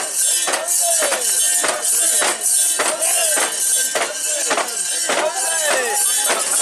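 Mikoshi bearers chanting in unison in time with the jangling metal rings of the portable shrine, a steady beat of sharp metallic clanks about twice a second.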